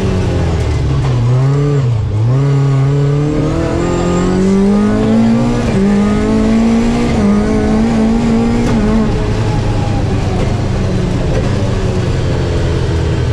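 Toyota Corolla AE86's twin-cam four-cylinder engine driven hard, heard inside the cabin: the revs climb in pulls, drop briefly about two seconds in and again near six seconds, then fall away after about nine seconds to a steady lower note.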